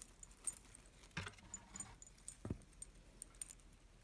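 Small metal charms on a bracelet clinking and jingling lightly as it is handled, with two soft knocks, one a little after a second in and one just past halfway.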